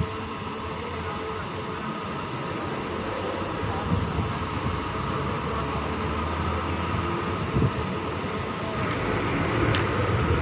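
Steady fan noise at a workbench, with a few soft knocks about 4 and 7.5 seconds in.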